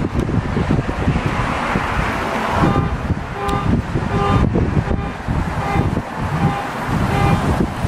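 Wind buffeting the microphone over the low rumble of a duck boat's engine. From about three seconds in, short high toots repeat about twice a second over the rumble.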